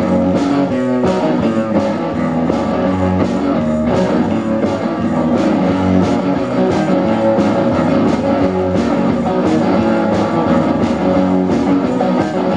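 Live garage rock played loudly on electric guitars over a steady drum beat, with no singing.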